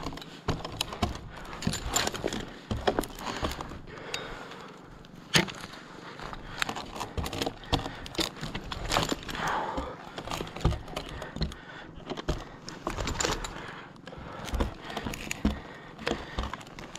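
A lineman climbing a wooden utility pole on gaffs with a pole strap: an irregular series of sharp knocks as the spurs bite into the wood and the strap's metal hooks and rings clink against the pole.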